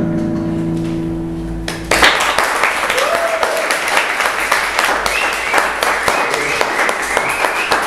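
Music holding a final chord, which stops abruptly a little under two seconds in. An audience then breaks into applause, steady clapping that lasts to the end.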